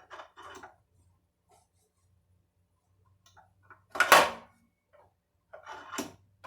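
Clicks and knocks of parts being handled while adjusting a router table's fence gauge, with one loud sharp clatter about four seconds in.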